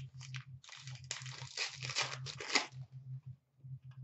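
A hockey card pack's wrapper being torn open and crinkled by hand, a dense rustling that is heaviest in the middle and dies away before the end as the cards come out.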